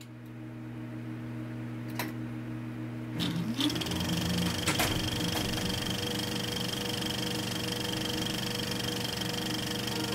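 Steady mechanical whirring and hum with a few sharp clicks, a short rising whine about three seconds in, and a louder click near five seconds, after which the whirring fills out with higher steady tones.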